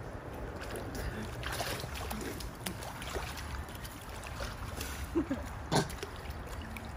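Swimming-pool water lapping and splashing lightly around a wading person, with a brief voice-like sound and a sharper splash about five to six seconds in.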